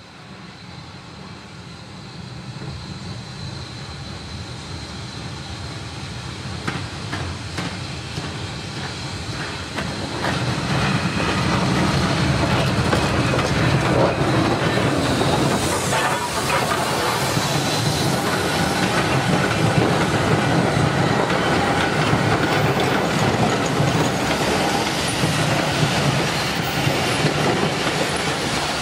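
Steam train, an SECR C Class 0-6-0 running tender-first, approaching and passing close by. It grows steadily louder over the first ten seconds or so, then its wooden coaches roll past with a clatter of wheels over the rail joints.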